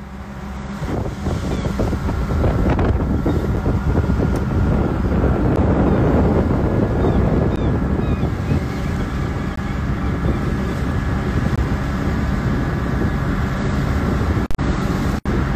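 Fishing boat under way: its engine running steadily, with water rushing past the hull and wind buffeting the microphone.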